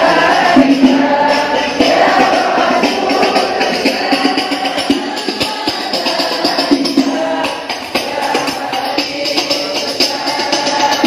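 Large crowd singing a devotional maulid praise song (sholawat) together, with tambourine-type hand percussion beating through the singing.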